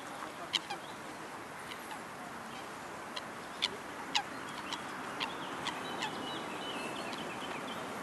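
Geese, coots and a mute swan grazing at close range: irregular sharp clicks of bills plucking grass over a steady background hiss. A faint high twittering bird call comes in about five seconds in.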